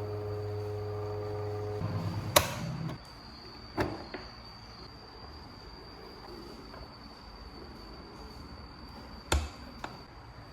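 A steady electric motor hum stops about two seconds in, followed by a sharp click and a few light knocks.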